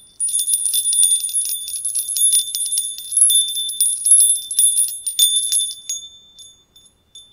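A set of small Om chime bells shaken, giving a dense, high tinkling of many quick strikes with a bright ringing that dies away over the last second or so: little fairy tinkery bells.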